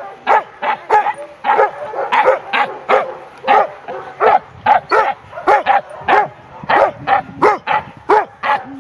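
A dog barking over and over in short, high yaps, about three a second, during excited play.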